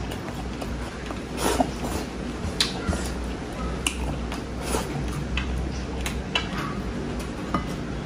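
Close-miked eating: a man chewing rice and beef with wet mouth clicks and lip smacks about once a second, over a steady low hum.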